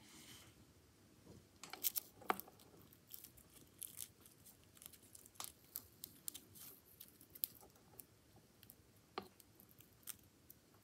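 Indian giant forest scorpion feeding on a black cricket, its mouthparts crunching and tearing the cricket's body: faint, irregular crackles and clicks, with a cluster of sharper ones about two seconds in.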